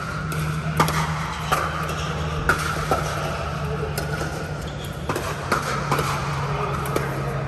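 Pickleball paddles striking a hollow plastic ball in a quick exchange at the net: a run of sharp pops, each with a short ring, about every half second to a second, over a steady low hum.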